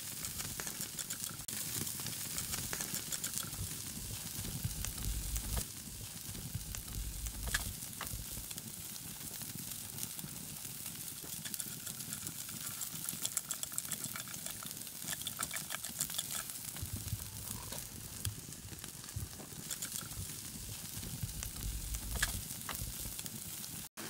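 Pork ribs sizzling on a steel grill grate over an open wood fire, a steady crackly hiss with scattered sharp crackles.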